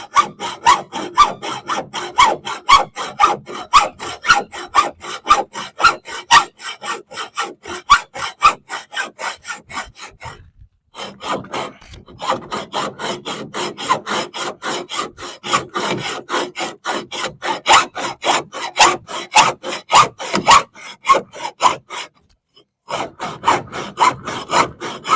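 A saw with a metal-cutting blade sawing back and forth through a boat's metal gunnel in quick even strokes, about three a second. It stops briefly twice, about ten seconds in and again near twenty-two seconds.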